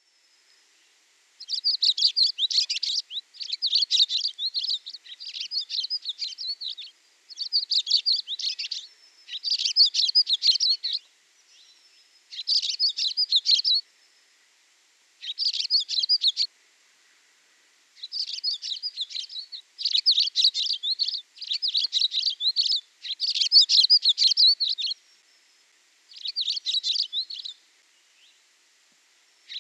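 Songbird singing: about a dozen phrases of rapid, high-pitched chirps and trills, each a second or two long, separated by short pauses.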